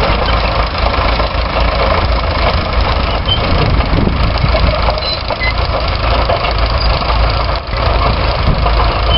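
Vintage tractor engine running steadily, with a heavy low rumble.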